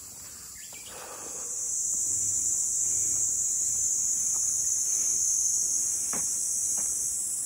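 A chorus of cicadas: a steady high-pitched drone that grows louder about a second and a half in and eases slightly near the end.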